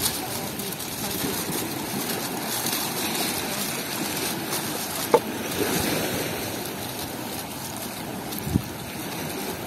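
Steady wash of surf and wind on a beach, with two short knocks, one about five seconds in and a duller one near the end.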